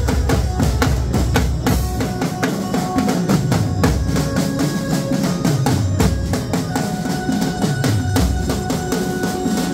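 Street drum band playing: several large steel-shelled dhol drums beaten with sticks, with a struck metal plate, in a fast, dense rhythm. Deep strokes fall in pitch about every two seconds, and a held melody line sounds over the drumming.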